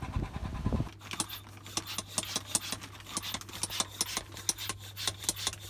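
Wind buffeting the microphone briefly at the start. Then a hand pump is worked on a plastic vacuum storage bag: rapid, irregular strokes of hissing air and crinkling plastic, about three a second, over a steady low hum.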